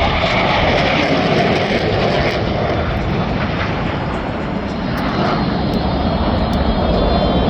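Loud, steady jet noise from Blue Angels F/A-18 Super Hornets.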